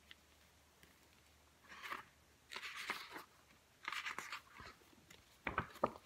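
Paper rustling as a large picture book is opened and its pages turned, in three short bursts, followed by a few soft knocks from the book being handled near the end.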